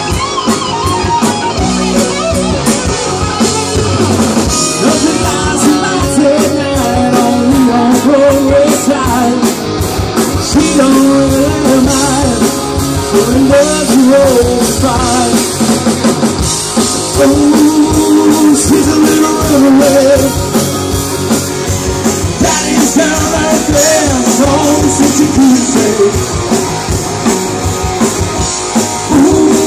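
A live rock band playing: two electric guitars, bass guitar and drum kit, with a man singing lead vocals.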